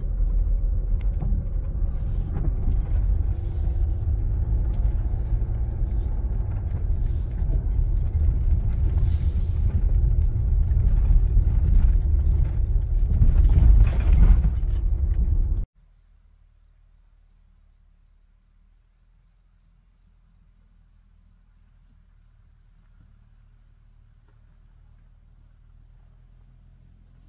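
2016 Mazda CX-5 driving slowly over a rough, overgrown dirt track, heard from inside the cabin as a steady low rumble of tyres and suspension, with sharp scrapes and snaps as brush and branches hit the body. About halfway through it cuts off suddenly to a quiet outdoor scene with a faint low rumble that slowly grows and a faint regular high ticking.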